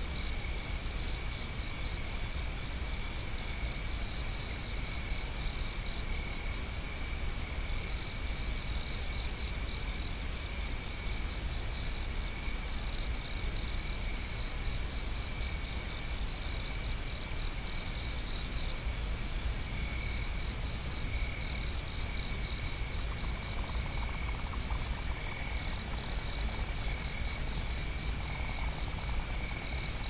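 A steady chorus of night insects: a constant high trill that runs without pause over an even hiss.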